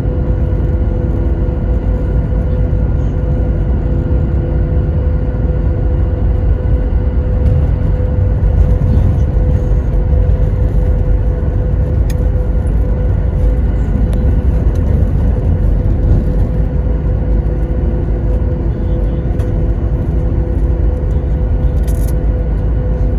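Steady rumble of a Boeing 737's jet engines and airframe heard inside the passenger cabin, with a constant hum running over it and no change in pitch or loudness.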